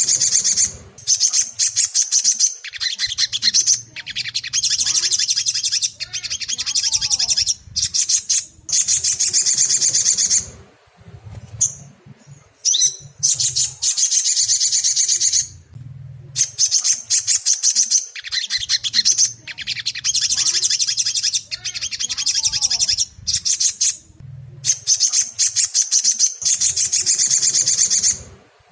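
Ruby-cheeked sunbird (sogon) song: long runs of rapid, high chattering trills broken by short pauses, the same pattern coming round again as a loop. It is played as a provoking ('pancingan') track to stir an untrained captive sunbird into song.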